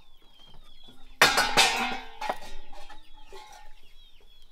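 A chicken clucking, with one loud, harsh squawk about a second in and a few softer clucks after it, over faint high cheeping in the background.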